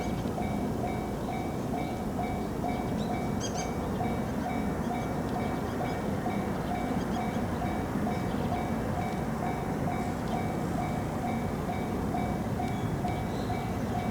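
Japanese level-crossing alarm ringing its steady, rapid 'kan-kan' at about three strokes a second, over the steady rumble of a train at the crossing.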